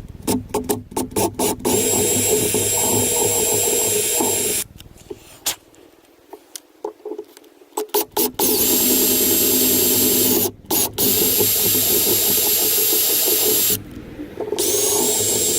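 Power drill boring holes into an aluminum pickup cab. A quick run of short trigger blips comes first, then the drill runs in long stretches of several seconds, with short pauses between.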